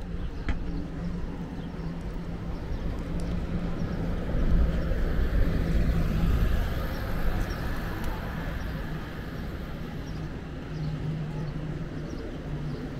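A motor vehicle passing over steady street noise. Its low rumble swells about four seconds in and fades away by about eight seconds.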